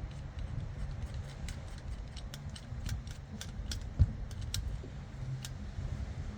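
Small metallic clicks and taps of a fork spring compressor being fitted and tightened onto a motorcycle fork top, irregular at a few a second, with one louder knock about four seconds in, over a steady low rumble.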